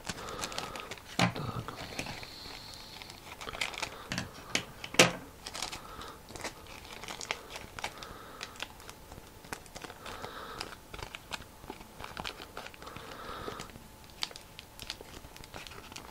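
Paper and wide clear adhesive tape crinkling and crackling irregularly as a strip of tape is pressed and smoothed onto a folded paper boat, with a few sharper clicks, the loudest about five seconds in.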